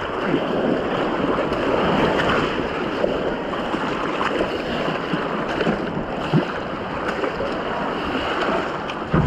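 Steady rush of river water around a canoe as it is paddled down a channel, with a few short splashes.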